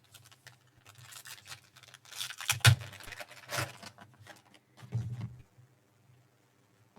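Trading cards being handled: scattered clicks and rustles of cards and their packaging, loudest about two and a half seconds in, over a faint steady low hum.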